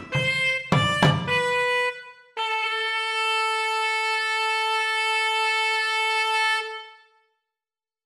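Sampled nadaswaram, the South Indian double-reed wind instrument, from the ROLI Equator Colours of India pack, played from a touch controller. A short phrase with a couple of thavil drum and manjeera cymbal strikes in the first second or so leads into one long held final note of about four seconds, which then fades away.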